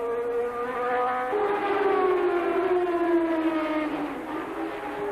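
Engine notes of 1988 Formula 1 cars on track, high-pitched tones falling steadily in pitch; a second, louder engine note comes in about a second in and also drops away.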